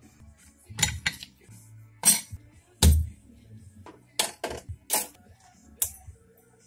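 Metal engine parts and hand tools clinking and knocking against the workbench and the open crankcase of a Honda Astrea (Cub-type) engine being taken apart. About eight sharp clinks come at uneven intervals over faint background music.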